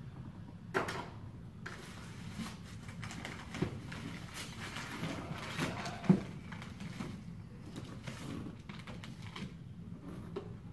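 Handling noises from unboxing a model truck: rustling of plastic packaging with a few short knocks, the sharpest about six seconds in.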